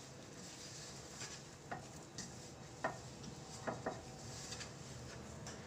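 Hands kneading crumbly gulab jamun dough in a stainless steel bowl: faint rubbing and scraping of dough on the steel, with four light knocks that make the bowl ring.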